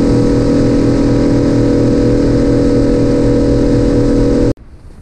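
Outboard motor running at a steady pitch as the boat speeds along, loud and even with no rise or fall. It cuts off suddenly about four and a half seconds in.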